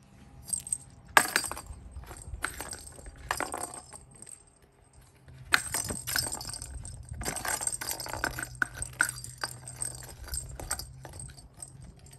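Plastic lattice cat ball with a bell inside jingling and rattling in irregular bursts as a kitten bats it, rolling and knocking against a plastic plant saucer. The sharpest knock comes about a second in.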